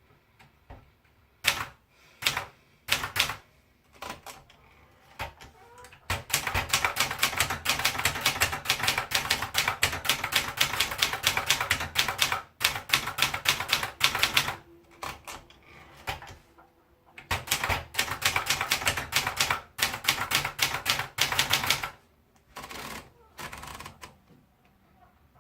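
Brother Deluxe 1510 manual portable typewriter being typed on. It starts with a few separate key strikes, then two long runs of rapid typing with a short pause between them, and ends with a couple of short bursts.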